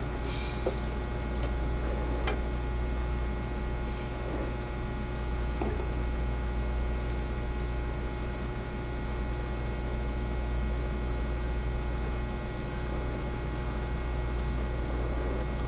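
Steady low machine hum, with a short high beep repeating about every two seconds and a few light clicks.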